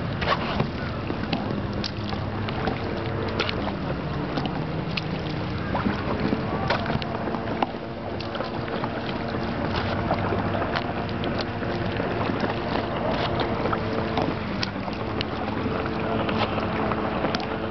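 Water sloshing and splashing around a kayak under way, with scattered small splashes and wind buffeting the microphone. A faint steady hum runs underneath.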